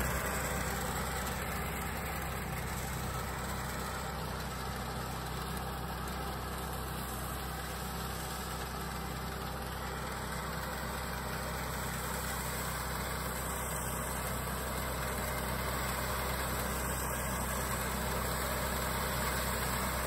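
Nanning TAGRM 4LZ-1.0A small crawler wheat harvester's engine and threshing machinery running steadily at an even pitch as it cuts standing wheat.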